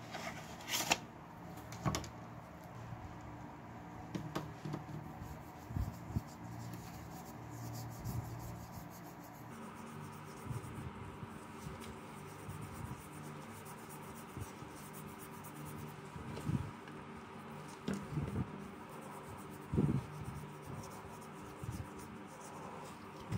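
Gloved hands handling a cardboard box of metal polish, then rubbing polish paste onto a metal alarm-clock case ring with a cloth: soft rubbing and handling noise with scattered light knocks and taps, over a steady low hum.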